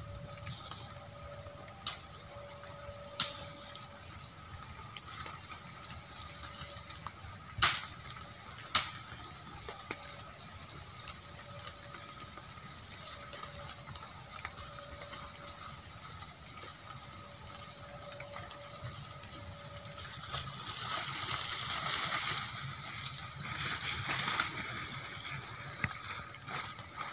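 A person moving through leafy undergrowth, with a louder stretch of rustling leaves and grass from about twenty to twenty-five seconds in. Before that, a steady background of faint repeating calls with a few sharp clicks in the first nine seconds.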